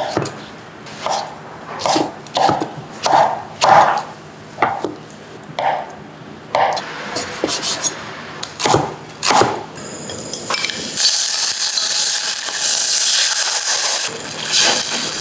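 A kitchen knife chopping shiitake mushroom and pork belly on a wooden cutting board: a series of sharp separate chops. From about ten seconds in, a steady sizzle of pork belly frying in a saucepan, with water poured into the pot near the end.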